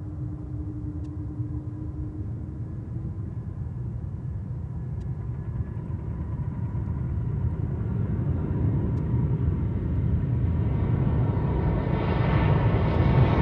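Boeing 737-800 jetliner's twin CFM56 turbofans on final approach: a low rumble that grows steadily louder as the jet nears, turning brighter and hissier near the end.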